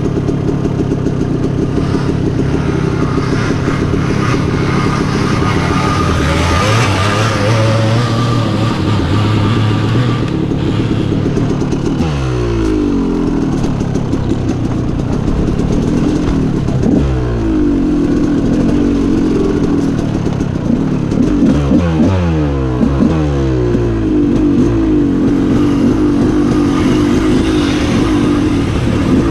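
Two-stroke dirt bike engine running while riding, steady at first, then the revs falling and rising over and over as the throttle is closed and opened, settling steadier near the end.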